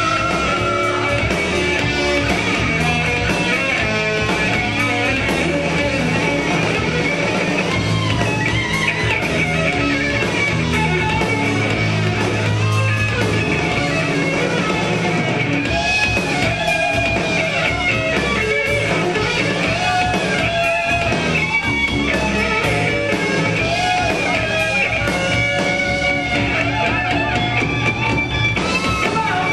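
Rock band playing live, with electric guitars carrying the music and no singing: an instrumental guitar stretch over drums.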